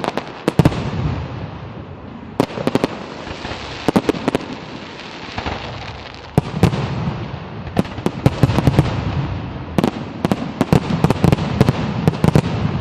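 A fireworks display with shells bursting overhead: volleys of sharp cracks and crackling come in clusters every second or two, each followed by a rumbling boom that echoes.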